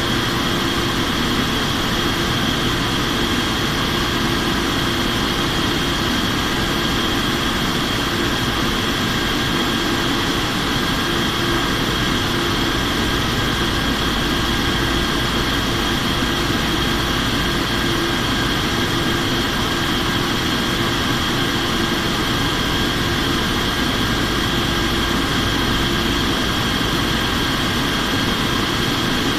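Steady drone of an aircraft in flight, heard from inside: engine and airflow noise with a few constant whining tones, unchanging throughout.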